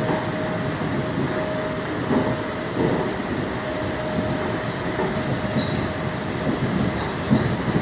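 Inside the cabin of a rubber-tyred, driverless monorail train running along its guideway: a steady running rumble of the car in motion. A steady whine sounds over it and dies away about six and a half seconds in.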